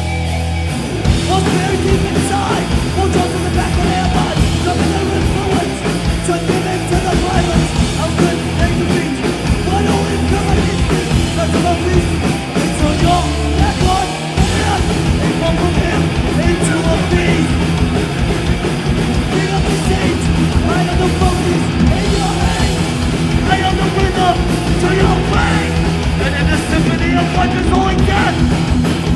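Thrash metal band playing live at full volume: distorted electric guitars, bass and pounding drums, with a brief dip about halfway through.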